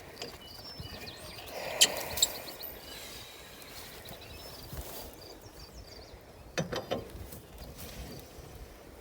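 A few sharp metallic clicks and clinks from work on a hay baler's wheel: two about two seconds in and a short cluster near seven seconds, over quiet outdoor ambience.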